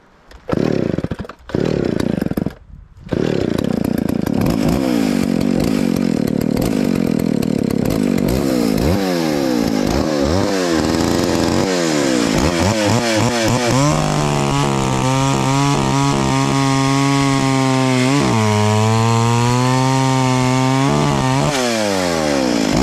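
McCulloch Mac 610 two-stroke chainsaw running at full throttle and cutting through a log, its note held steady and lower while the chain is in the wood and picking up again as the cut finishes near the end. The chain is freshly sharpened with its depth gauges reset, and it cuts fast and clean.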